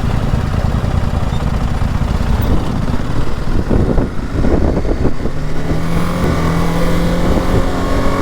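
Single-cylinder engine of a BMW G 310 GS motorcycle running while riding downhill, under a rumble of wind and road noise. About six seconds in, it settles into a steady, even engine note.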